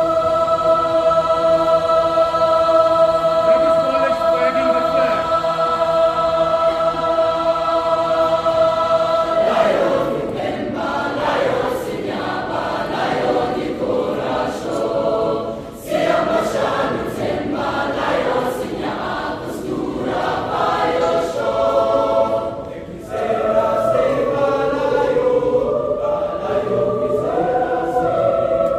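High school choir singing a Brazilian folk song in parts. A long held chord lasts about the first nine seconds, then the voices move into a faster rhythmic passage with short breaks between phrases.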